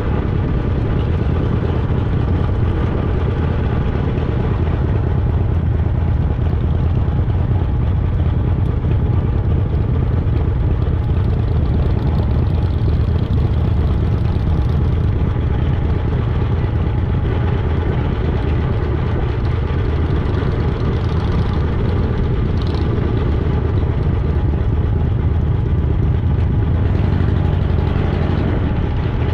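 Harley-Davidson Fat Boy's V-twin engine running steadily at low speed as the motorcycle rolls slowly.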